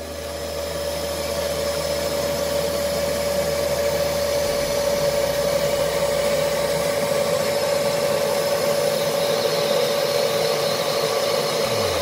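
Würth SEG 10-2 spray-extraction vacuum cleaner's suction motor running, coming up to speed over the first couple of seconds and then holding a steady rushing sound with a high hum, as the upholstery nozzle draws water out of fabric seat cloth.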